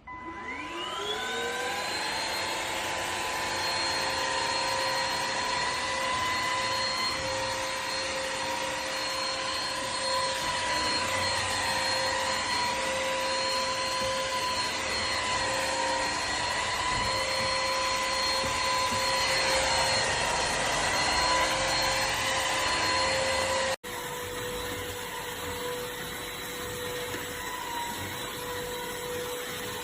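The motor of an EZhome EC08 wet-and-dry vacuum cleaner switches on and spins up with a rising whine over about two seconds. It then runs steadily with a high-pitched whine. About 24 seconds in the sound cuts off abruptly and carries on a little quieter.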